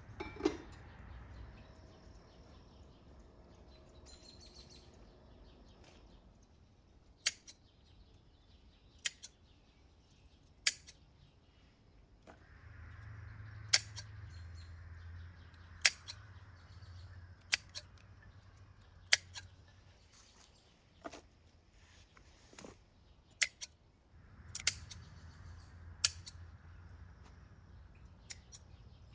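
Pruning shears snipping through rose hip stems: about a dozen sharp snips, one every second or two, from about seven seconds in. Birds chirp faintly behind them, and just after the start there is a single metallic clink as a samovar's chimney pipe is handled.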